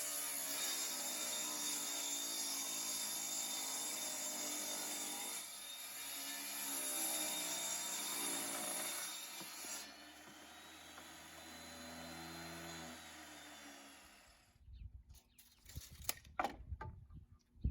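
Table saw running and ripping a pallet board. The motor's pitch sags several times as the blade takes the load. It is switched off and winds down about 12 to 14 seconds in, followed by a few knocks and clatters of wood being handled.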